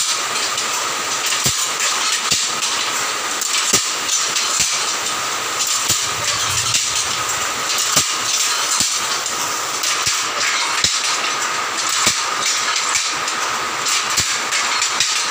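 Rongpuriya handloom with a 120-hook jacquard machine being worked, clattering steadily with sharp wooden knocks about once a second as the beater and shuttle strike on each pick, over a steady high hiss.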